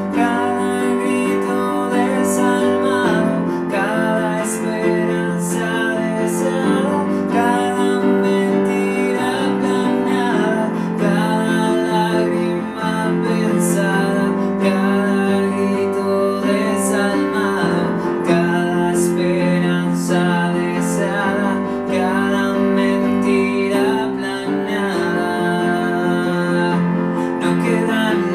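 A song played on a Yamaha electronic keyboard, with a man singing over it.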